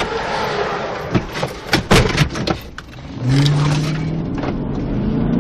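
Road and wind noise broken by several sharp knocks and thumps. About three seconds in, a car engine starts to accelerate and its hum climbs a little near the end.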